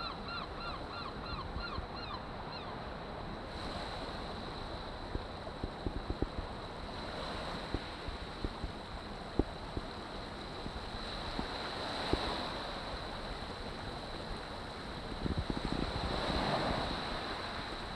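Gentle waves washing on a shingle beach, with wind buffeting the microphone and swelling twice in the second half. In the first few seconds a bird gives a quick run of repeated high calls, about three or four a second, and a few scattered clicks come through the middle.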